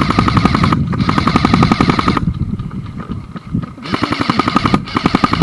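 Airsoft gun firing long full-auto bursts of rapid, even clacks over a steady whine. Two bursts are broken by a short gap about a second in, then comes a pause of over a second, then two more bursts near the end.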